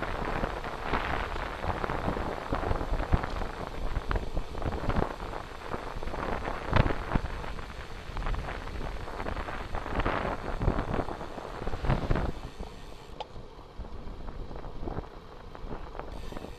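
Wind buffeting the microphone of a bicycle-mounted camera while riding, with frequent short knocks and rattles from the road surface; the rush eases somewhat in the last few seconds.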